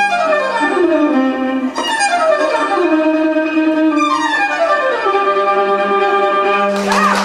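Solo violin playing fast, repeated descending runs over a backing track, closing on a held note. Applause and cheering break out near the end.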